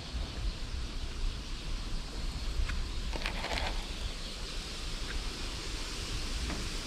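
Wind rumbling on the microphone over outdoor ambience, with a few faint clicks and a brief rustle about three seconds in.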